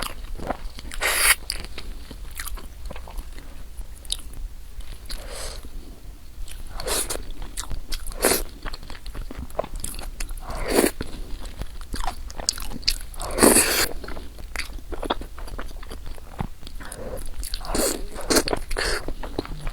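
A person eating close to the microphone, chewing and biting noodles and rice, with irregular clicks and crunches. Louder, longer bursts come about a second in and twice more past the middle.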